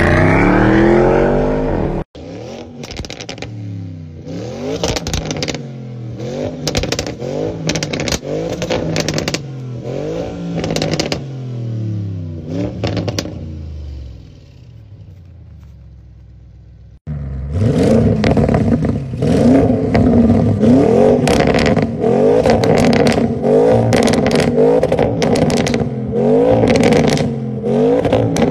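Audi RS6 C8's twin-turbo V8 revving hard again and again through a loud tuned exhaust. Each rev rises and falls, with sharp crackles and pops as it drops back. It opens with the car accelerating past, and after a cut about two-thirds in the revving is louder and quicker.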